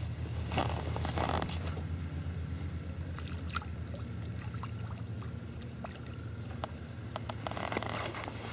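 Small hooked perch being lifted out of the water on a float rod: a brief rustle about a second in, then a scatter of light splashes and drips as the fish wriggles at the surface, over a low steady hum.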